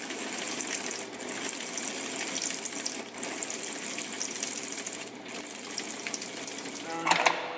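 A hand-held turning tool shaves a spinning foam block on a wood lathe, making a continuous scratchy, hissing rasp as foam chips tear off, broken by short gaps about every two seconds. The foam is being roughed from a cylinder toward a sphere, cutting downhill from the high middle toward the ends.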